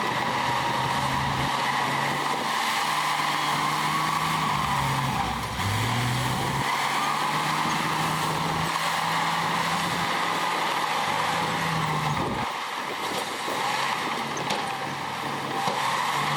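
Diesel engine of heavy earthmoving equipment working under load, its pitch dipping and climbing again a few times, with a steady high whine over it.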